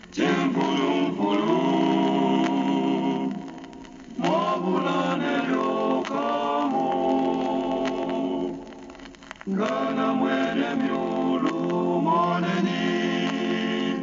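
A choir singing a cappella, held chords sung in phrases, with short breaks between phrases about four and nine seconds in.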